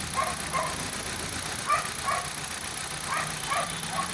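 Dog whimpering in short, high-pitched whines, mostly in pairs, over the low hum of the Hyundai Accent's 1.4 Kappa G4LC engine idling.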